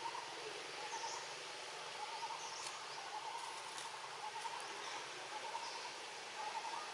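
Outdoor forest ambience: birds calling with short, repeated warbling notes and a few brief high chirps over a steady hiss.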